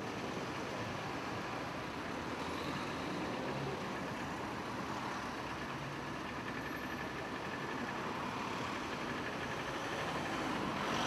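City bus running, heard from inside the passenger cabin: a steady rumble of engine and road noise.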